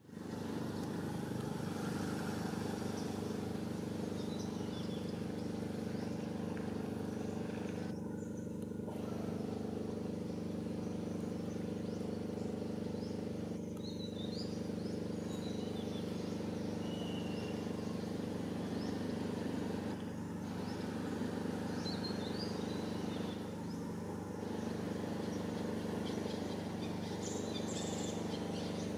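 Steady low drone of an idling engine, holding several fixed tones, with a few faint bird chirps over it.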